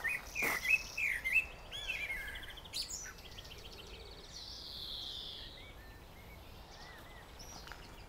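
Songbirds singing: a loud phrase of wavering whistled notes in the first second and a half, followed by a quick trill and then a few falling whistles, over a faint steady outdoor background.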